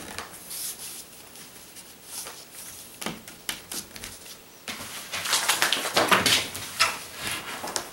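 Particleboard furniture panels being handled on a cardboard-covered floor: a few light taps and a knock, then from about five seconds in a busier stretch of scraping, rubbing and clicking as the panels are shifted and fitted together.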